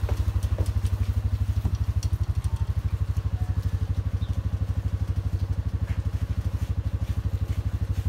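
Farm vehicle engine idling steadily, a low even pulse of about ten beats a second.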